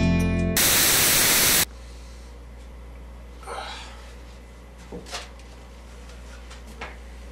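A music cue breaks off into about a second of loud static hiss, which cuts out suddenly to a quiet, steady low hum. Over the hum come a brief rustle and a few faint knocks.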